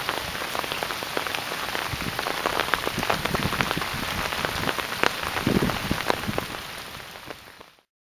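Heavy rain falling on a hard surface, individual drops heard as sharp ticks over a steady hiss, with a brief low rush about five and a half seconds in; the sound fades out near the end.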